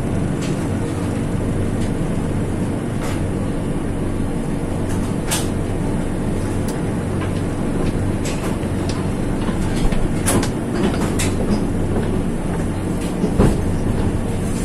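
Passenger train pulling out of a station, heard from inside the coach: a steady low rumble and hum of the running train, with a handful of sharp, irregularly spaced clacks from the wheels, the loudest near the end.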